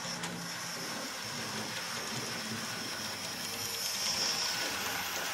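Model railway locomotive, a Thomas the Tank Engine, running on the track with its coaches: a steady high motor whine and wheel noise, louder around four seconds in as it passes close.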